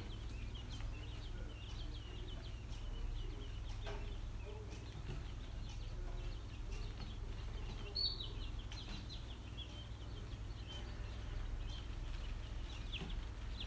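Newly hatched quail chicks peeping: many short, high, falling peeps, overlapping without pause, over a low steady hum.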